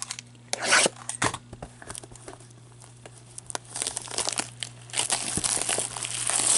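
Plastic shrink-wrap being torn and crinkled off a cardboard box of trading cards. A short sharp tear comes about half a second in, then scattered clicks, then crinkling that builds and gets louder through the second half. A faint steady hum sits underneath.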